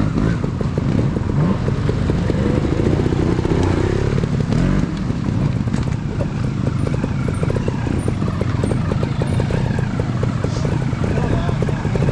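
Trials motorcycle engine revving up and down over the first few seconds, then running at low revs with a rapid, even firing beat.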